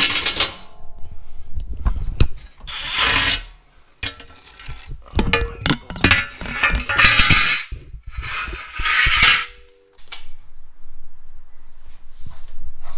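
Metal clanking and scraping from tools and parts being handled under the car as a cross member is unbolted, in several loud bursts a second or two long with sharp clicks between them.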